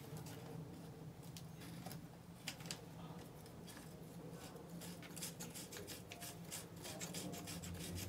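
Faint rubbing and small clicks of a garden hose's threaded coupling being screwed onto the outlet port of a Milwaukee M18 cordless transfer pump, with the hose and pump being handled.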